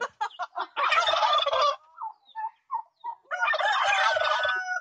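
Domestic turkey gobbling twice, each gobble a loud rattling call about a second long, with a few short notes before and between them.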